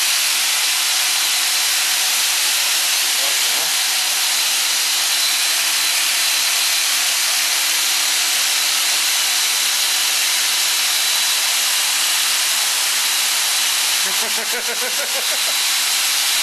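Steady, loud hissing whir of running electrical machinery, with a faint steady hum underneath.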